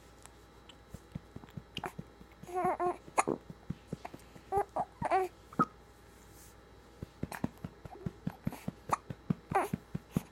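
Baby hiccuping, with short fussy babbling cries in three spells and many quick sharp clicks in between.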